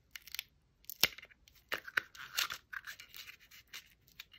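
Cellophane wrapping on a ribbon spool crinkling and crackling as it is picked at and pulled open by hand, with a sharp click about a second in.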